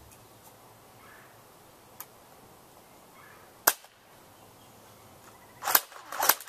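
Airsoft HK MP5 replica fired in its spring (pump-action) mode: sharp snapping shots. There is one faint click about two seconds in, one loud snap near the middle, then two more snaps about half a second apart near the end.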